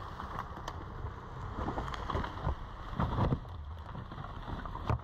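Jeep Wrangler crawling slowly over rocks, its engine running low under the crunch of tyres on dry leaves and stones. The crunching swells about three seconds in, and a sharp knock comes near the end.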